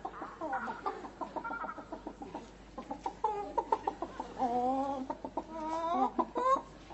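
Human voices imitating chickens, clucking back and forth in place of words: a quick run of short clucks, then from about halfway longer, drawn-out wavering clucks.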